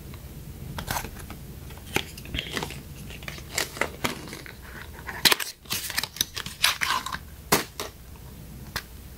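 Foil-covered paperboard cosmetics box being handled and opened by hand, with a blush compact slid out: scattered sharp clicks, scrapes and crinkles, busiest in the second half.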